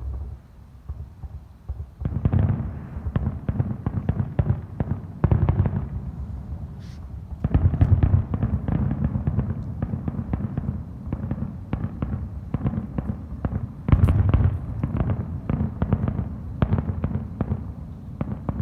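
Fireworks going off in a rapid barrage: a dense string of bangs and crackles that starts about two seconds in, surging loudest twice, near the middle and again later on.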